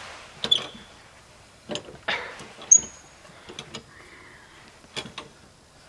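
Scattered sharp clicks and knocks of metal tools, with two brief high squeaks, from working a car jack during a spare-tire change.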